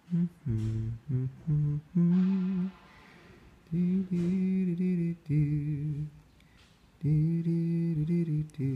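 A man humming a tune to himself: a string of held notes changing in pitch, in short phrases with brief pauses.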